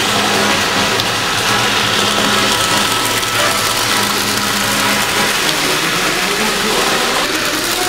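Toy electric trains running on three-rail tinplate track: a steady whir of the locomotive motors and gearing, with the clatter of wheels on the metal rails.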